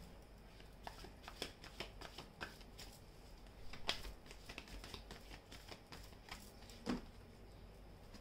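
A tarot deck being shuffled by hand: faint, scattered card flicks and slaps, with a slightly louder snap about four seconds in and a soft knock near seven seconds.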